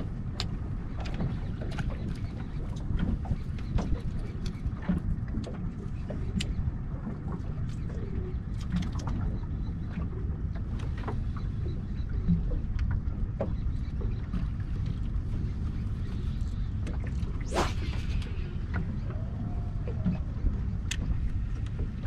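Steady low wind rumble on the microphone and water around a small boat, with scattered light ticks and taps, and one brief swish about three-quarters of the way through.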